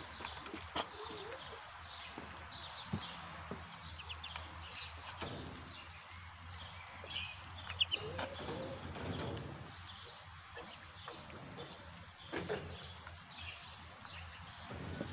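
Muscovy ducklings peeping while they feed, short high chirps scattered irregularly throughout.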